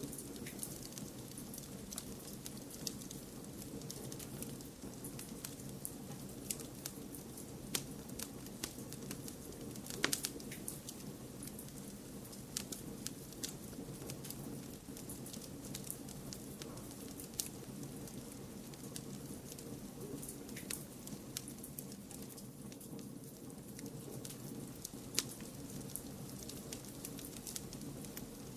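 Fireplace fire crackling, with irregular sharp pops and snaps, the loudest about ten seconds in, over a steady bed of white noise.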